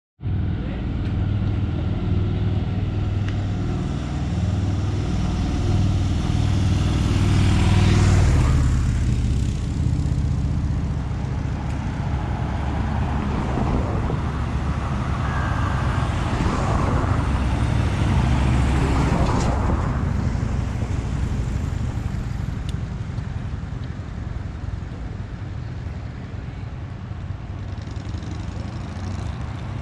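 Road traffic: engines running steadily, with vehicles going past, the loudest pass about eight seconds in and more passing a little past the middle.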